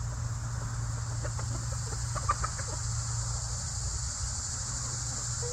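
Chickens clucking softly a few times, loudest about two seconds in, over a steady high hiss and a low hum.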